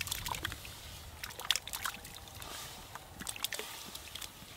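Lamb kidneys sliding off a steel platter into a kadai of water a few at a time, each landing with a small irregular splash.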